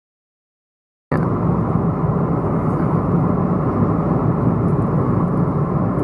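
A car driving, with a steady rumble of road and engine noise that cuts in abruptly about a second in.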